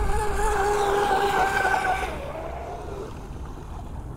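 Traxxas M41 Catamaran Widebody RC boat's brushless electric motor whining steadily at speed, then fading away about two seconds in as the boat slows off the throttle.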